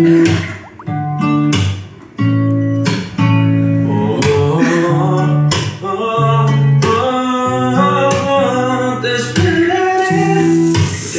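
A song playing loudly: strummed and plucked acoustic guitar with a singing voice.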